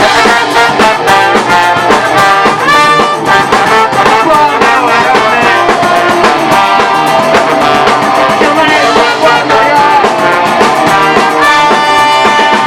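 A band playing a song live in an acoustic arrangement, with sustained melodic notes over a steady, fast drum beat.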